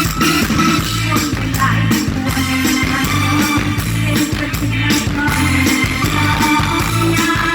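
Loud live Thai Isan band music played through a parade-truck sound system, with a steady beat of bass notes under the band.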